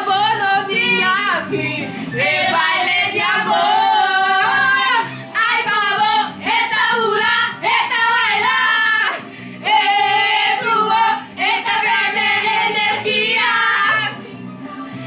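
A song with female singing over a steady beat, sung along to by several women, the voices coming in phrases with short breaks between them.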